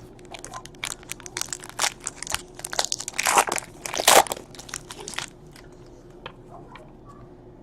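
Foil trading-card pack wrapper being torn open and crinkled, a dense crackling that is loudest around three and four seconds in and stops a little after five seconds.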